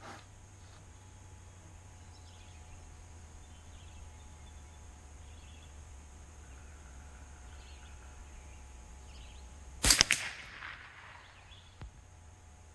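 A single shot from a Savage A22 semi-automatic .22 LR rifle about ten seconds in, a sharp crack that fades off, with a faint click near the start and another about two seconds after the shot.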